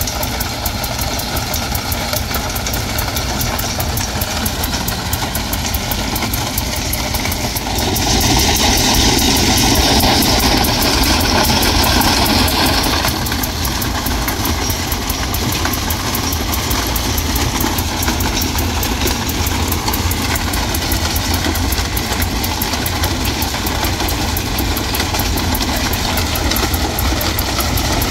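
Diesel engine of a rail-mounted ballast sweeping machine running steadily as its rotating broom sweeps ballast stones off the sleepers, with a gritty hissing rush over the engine. About eight seconds in, the rush grows louder for about five seconds, then settles back.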